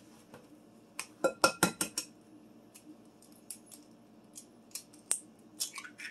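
Raw egg being cracked on a glass mixing bowl: a quick run of sharp taps and cracks about a second in, then smaller clicks of shell being pulled apart, with another sharp click near the end.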